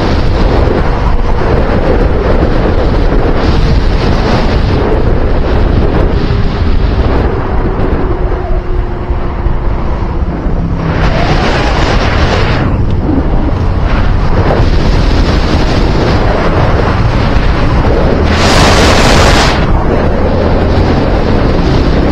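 Heavy wind buffeting a microphone that is travelling at speed, over a low rumble of road and vehicle noise. A faint tone slowly falls in pitch over the first half, and two short, louder rushes of noise come about eleven seconds in and again late on.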